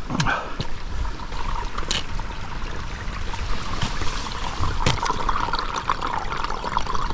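Water trickling and gurgling in a small stream hidden beneath mossy rocks, growing louder about five seconds in, with a few crackles of steps on dry leaves.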